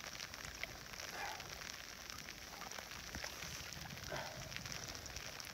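Light rain pattering on the water and on a rain jacket: a faint, steady crackle of many small drops.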